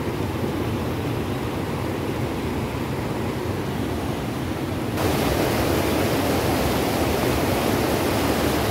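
Stream water rushing over a low concrete weir, a steady rush that gets suddenly louder and brighter about five seconds in.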